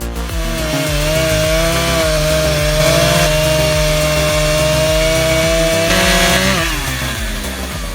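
Chainsaw cutting wood, its engine held at a steady high speed, then dropping in pitch as the throttle is let off about six and a half seconds in.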